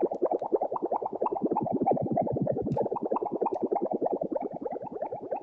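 Synthesized watery bubbling from the Vital soft synth: a fast, dense stream of short rising blips, droplet tones run through a delay and a phaser. The patch is still being tuned toward the bubbly underwater sound it is meant to have.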